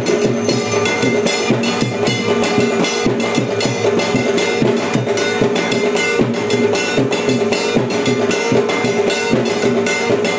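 Music with fast, even drumming and percussion.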